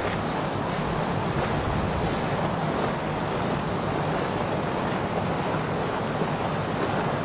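Steady rushing noise of wind on an outdoor microphone.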